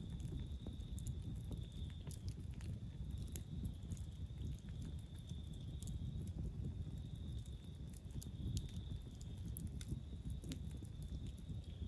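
Wood campfire burning, with scattered crackles and pops over a low rumble, and a steady high-pitched drone in the background.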